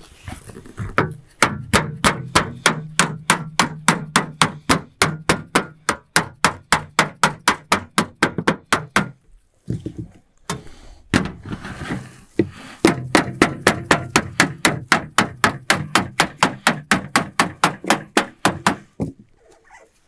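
A white-headed mallet beating fast and evenly, about five blows a second, on folded sheet-metal roofing, knocking down the corner fold of a standing seam to close it. Two long runs of blows with a short pause near the middle.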